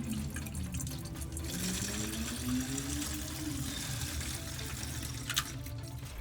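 Old automatic transmission fluid pouring in a steady stream from the open drain hole of a Volvo S60's transmission pan into a drain container.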